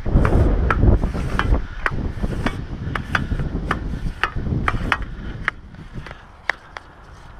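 Telescopic fibreglass antenna mast being collapsed by hand, its sections sliding down into one another with a series of light clicks, about two a second. Wind rumbles on the microphone during the first second and a half.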